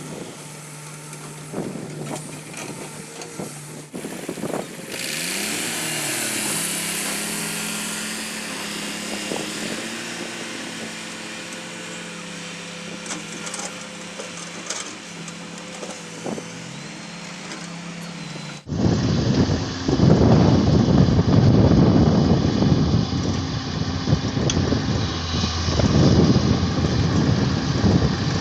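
A heavy excavator's diesel engine running, its pitch rising and falling a little as the machine works. About nineteen seconds in it switches abruptly to a louder, rougher rumble.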